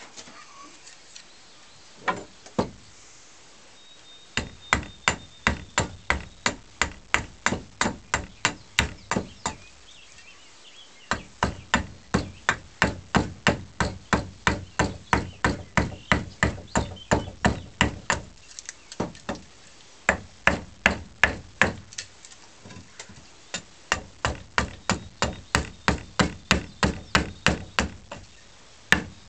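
Small hewing hatchet chopping into a wooden snath grip: quick, sharp strokes about three a second, in runs of several seconds with short pauses between.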